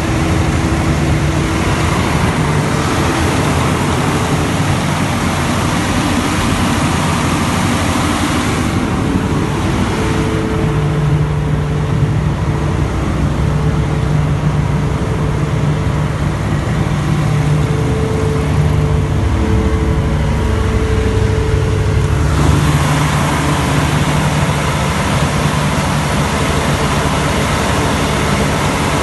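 Cummins C550D5E 500 kVA diesel generator set running at a steady speed, a constant low engine drone. The hiss above the drone thins out for about a quarter of a minute in the middle, then returns.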